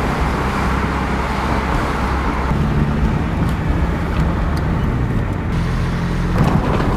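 Steady car engine hum and road noise, heard from inside a moving car.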